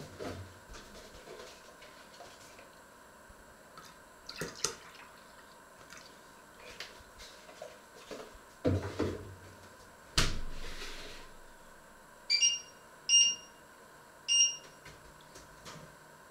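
Pots and a lid clattering on a glass-top hob, with a sharp metallic clank about ten seconds in that rings on briefly. Then three short electronic beeps, the hob's touch controls being pressed.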